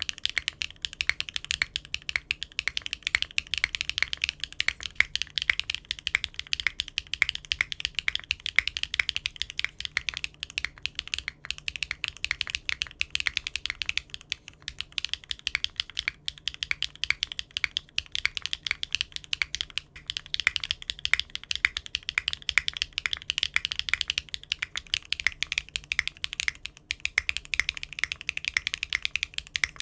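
Rapid, continuous typing on a mechanical keyboard fitted with Cherry-profile keycaps: a dense stream of key clacks with a few brief pauses.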